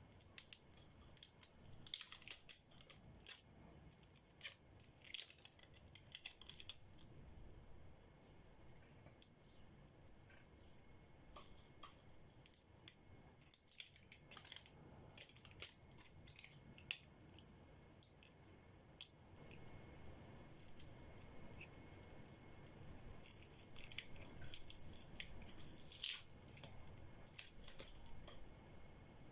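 Hard plastic parts and small tools being handled at close range, in uneven clicks, taps and short scrapes that come in clusters.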